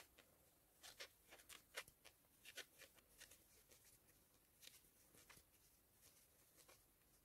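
Near silence with faint, irregular soft scratches and ticks of a metal crochet hook working plush chenille yarn.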